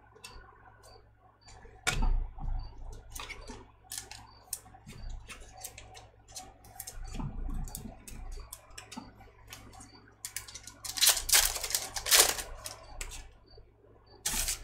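Trading cards being handled: cards flicked and slid against each other in a stack, making many light clicks and snaps, with a louder stretch of paper-and-foil rustling about eleven seconds in and a sharp snap near the end.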